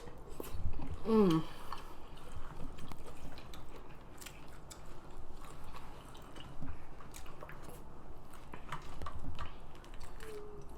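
Close-miked wet chewing and lip smacking of people eating seafood boil, in many short irregular clicks and smacks. A brief falling hummed "mm" about a second in.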